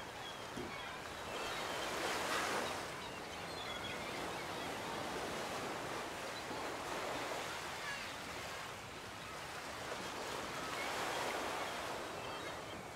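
Ocean surf washing onto a beach, the wash swelling and ebbing three times, each surge about four seconds after the last.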